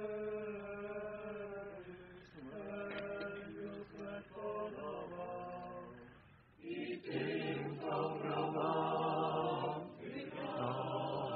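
Chanted singing: one voice intones on held notes that shift in pitch every second or two. About six and a half seconds in, a louder, fuller group of voices takes up the chant.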